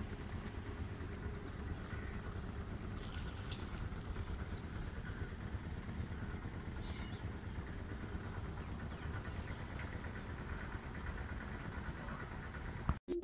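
Steady low rumble of a distant tractor engine working a flooded paddy field.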